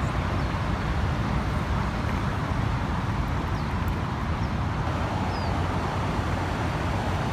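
Steady rushing noise of the swollen, fast-running Sacramento River in flood, mixed with a constant roar of road traffic.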